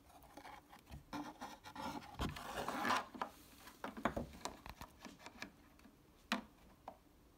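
A scrap-wood block being pulled out of a plastic water container and the container handled: irregular rubbing and scraping for about three seconds, then scattered clicks and knocks, the sharpest about six seconds in.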